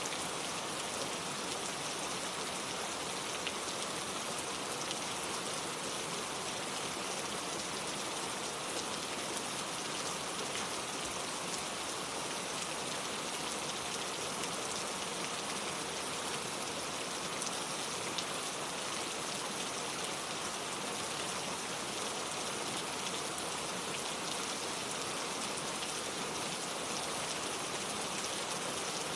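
Steady rainfall, a dense, even hiss of drops falling on surfaces, with a few individual drops ticking out of it.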